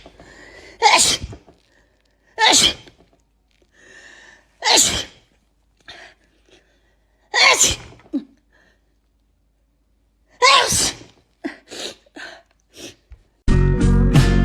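A woman sneezing over and over: five loud sneezes a few seconds apart, then a quicker run of smaller ones. Music starts near the end.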